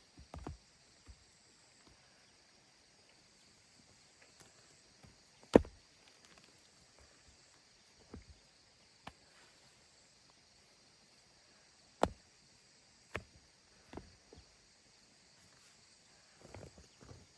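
Scattered sharp knocks, one every one to three seconds and the loudest about five and a half seconds in, with a short cluster of softer knocks near the end, over a faint steady high-pitched hum.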